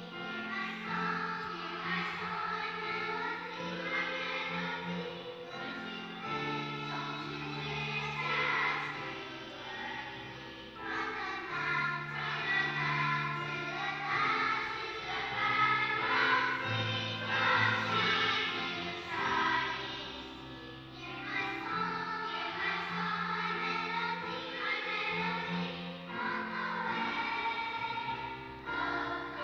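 Children's choir singing a song, its phrases rising and falling, over low held accompaniment notes.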